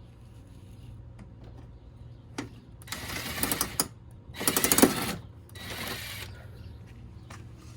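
Ryobi impact wrench hammering in three short bursts, each under a second, as it backs out the 10 mm bolts holding the under tray.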